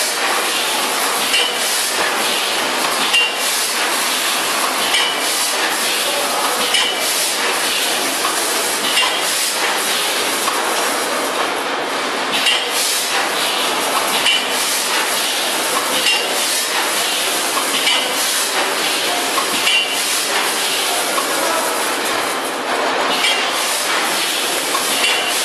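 Granule packaging line running: a vertical form-fill-seal bagging machine fed by a multihead weigher, making a steady metallic clatter. A sharper clink recurs about every two seconds.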